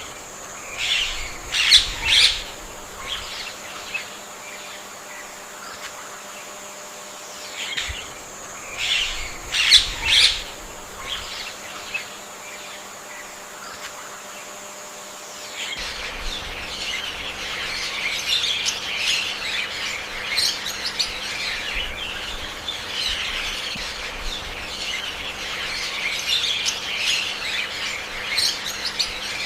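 Indian peafowl calling: two loud clusters of calls about two and ten seconds in, over a steady high tone. From about sixteen seconds in, after a cut, a dense chorus of chirping birds.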